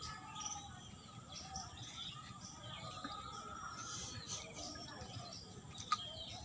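Small birds chirping, many short high calls scattered throughout, with one sharp click near the end.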